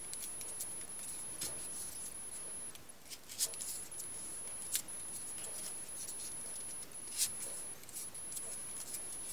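Folded paper modules of a 3D origami figure being handled and pushed into place: soft paper rustling, with a few crisp clicks as pieces slot in.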